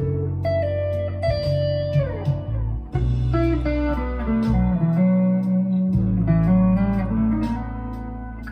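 Harley Benton TE-52 Telecaster-style electric guitar played through a Behringer Vintage Overdrive into a Blackstar ID Core 20 on its crunch channel, giving a lightly overdriven tone. It plays a bluesy single-note lead line with a downward slide about two seconds in and a stepping descent of notes around the middle.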